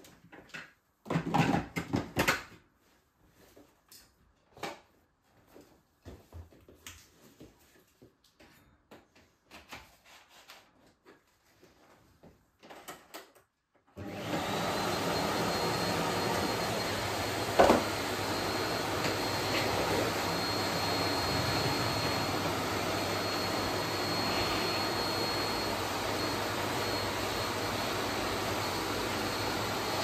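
Scattered plastic clicks and knocks as the dust container of a Bosch BGS21X320 bagless canister vacuum cleaner is handled and fitted. About halfway through, the vacuum switches on and runs steadily with a high whine, with one sharp knock a few seconds later.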